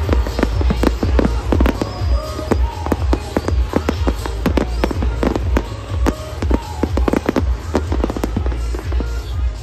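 Fireworks display: aerial shells bursting in rapid, irregular bangs and pops, many a second, without let-up.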